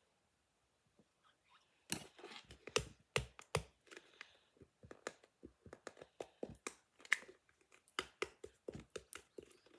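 Nearly empty plastic bottle being squeezed over and over, with irregular crackling and sputtering clicks starting about two seconds in.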